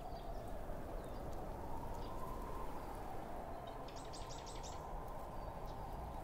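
Outdoor park ambience: a steady low background hum with small birds chirping now and then, and a quick run of about five high chirps about four seconds in.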